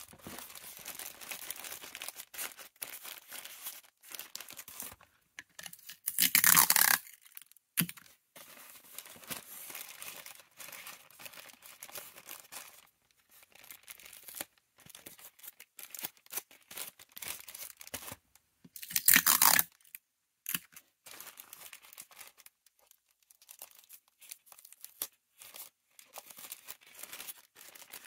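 Thin black plastic mailer bag crinkling and rustling as it is folded and handled. Two louder ripping sounds of tape pulled off a roll come about six seconds in and again about two-thirds of the way through.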